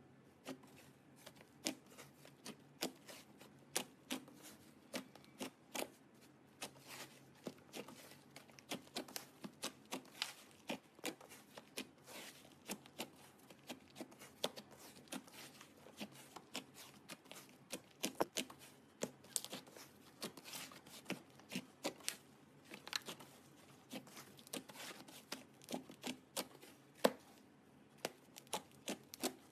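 Slime being squished and kneaded by hand, giving a dense run of irregular sticky clicks and pops, several a second.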